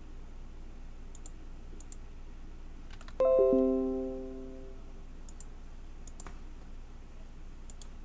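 Computer notification chime: a few bell-like notes sound together about three seconds in and ring out over a second and a half. Faint mouse clicks come now and then before and after it.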